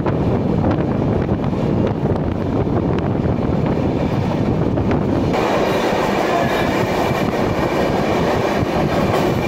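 Rajdhani Express passenger train running at speed on the rails: a steady loud rumble with faint wheel clatter over the rail joints. About five seconds in the sound grows brighter and hissier.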